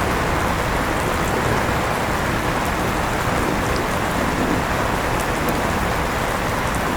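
Steady rain together with an electric fan running, a constant even noise with a few faint drop ticks.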